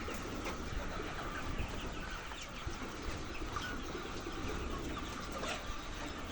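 A flock of laying hens clucking, many short overlapping calls making a steady din.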